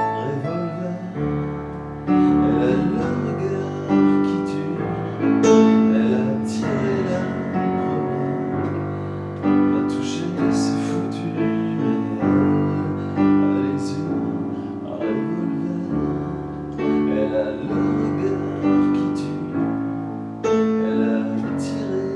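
Piano playing sustained chords, struck anew every second or two in a slow, steady pulse, with no voice over it.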